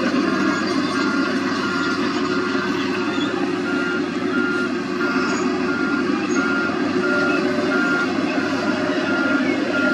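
Wheel loader's diesel engine running under a steady reversing alarm, a single-pitched beep repeating a little under twice a second.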